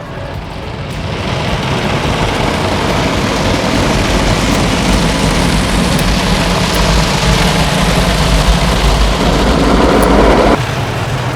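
Car wash running: a loud, steady rush of spray and machinery with a deep rumble underneath, building up over the first couple of seconds and cutting off suddenly near the end.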